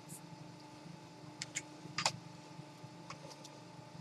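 Low steady room hum with a few faint clicks and taps, the clearest about one and a half and two seconds in: handling noise as a pair of wire strippers is picked up and brought over.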